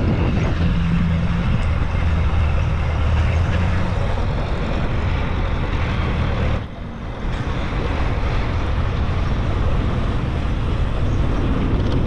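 Engine of a moving road vehicle running at a steady pace, with rushing wind and road noise. The sound drops briefly about seven seconds in, then picks up again.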